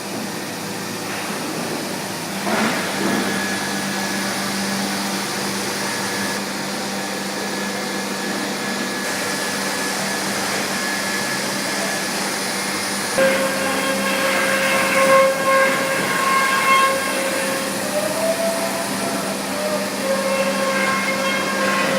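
CNC router running: the steady whine of the spindle over the rush of its dust extraction. From about 13 seconds a louder, higher whine with several tones joins in, wavering in pitch and level, as the router cuts.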